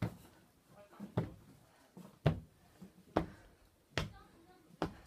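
Footsteps on stairs: six sharp steps at an even walking pace, a little more than one a second.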